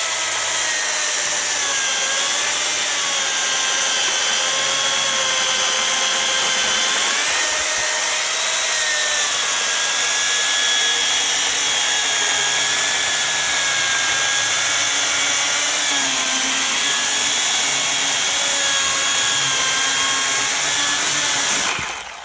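Makita UC4051A electric chainsaw (14.5-amp motor, 16-inch bar) running steadily through a cross-cut in a large frozen birch log; the motor's whine wavers in pitch as the load changes. Near the end the cut finishes and the saw winds down and stops.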